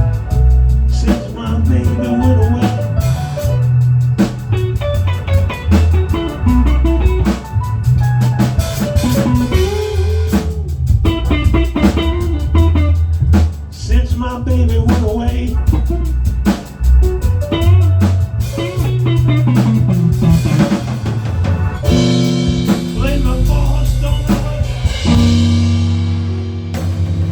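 Instrumental band music: drum kit keeping a steady beat under bass and guitar, with no vocals.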